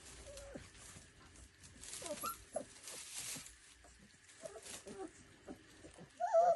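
Central Asian Shepherd Dog puppies whining with short, high squeaks, the loudest squeal near the end, amid the scuffling of their movement.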